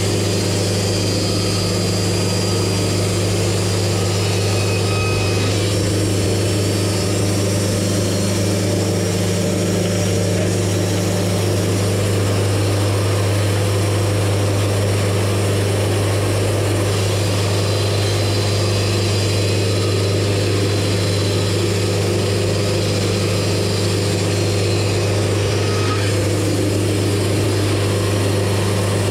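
Wood-Mizer portable band sawmill running at a steady speed, a constant hum with its band blade cutting a juniper log at the start.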